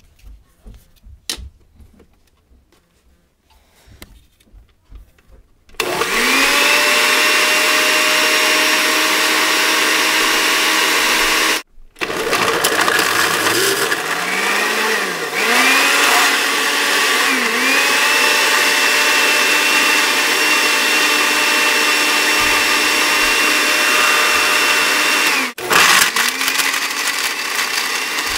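A blender motor switches on about six seconds in and runs loud and steady, chewing through a whole roll of toilet paper. Its pitch sags and recovers a couple of times as the paper loads the blades. It cuts out for a moment twice and picks straight back up.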